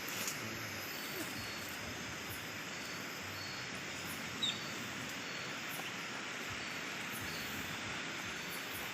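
Steady, even rush of flowing stream water, with one brief click about four and a half seconds in.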